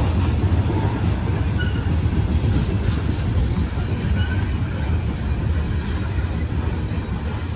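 Norfolk Southern freight train rolling past, a steady low rumble of steel wheels on rail, with a few faint short high squeals.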